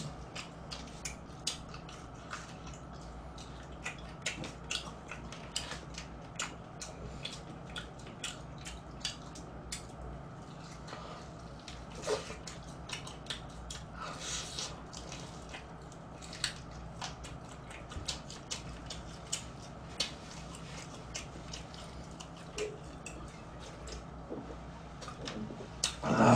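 A man eating crispy old-style fried chicken up close to the microphone: a steady run of small crunchy clicks and lip smacks as he bites and chews, over a low steady hum. A short loud burp comes right at the end.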